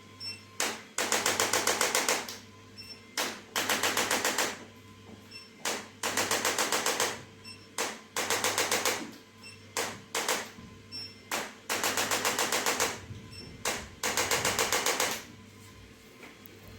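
Handheld electric percussion instrument firing rapid, evenly spaced mechanical taps, about seven a second, in repeated bursts of a second or so with short pauses between them, as it is applied to the patient during chiropractic treatment. A faint steady hum runs underneath.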